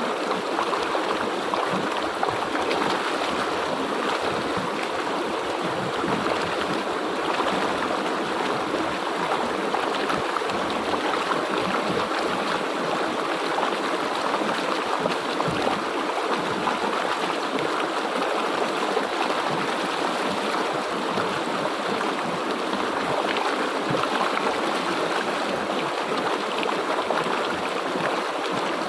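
River water flowing over rocks, a steady rushing and gurgling.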